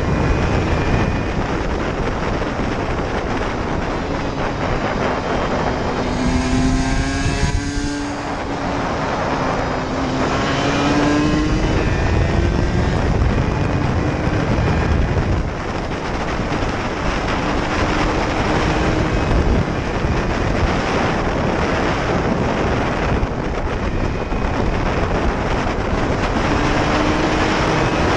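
Aprilia RS125 single-cylinder two-stroke engine running hard at high revs, heard from onboard the motorcycle. The revs drop about eight seconds in and climb again, with a smaller dip around halfway through.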